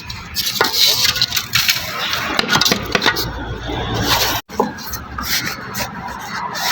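Workshop clatter: many quick clicks and knocks with scraping over a steady noisy background. The sound drops out for an instant about four and a half seconds in.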